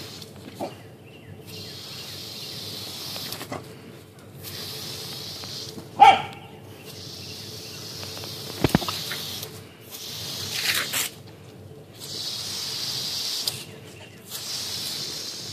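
Garden hose spraying water with a hiss that comes and goes in stretches of one to three seconds, with short breaks between. A corgi gives one short bark about six seconds in.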